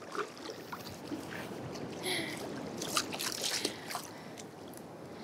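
Small, gentle sea waves washing and sloshing around shallow water, with scattered little splashes and trickles; the swell rises about two seconds in. The surf is calm, with soft waves rather than strong breakers.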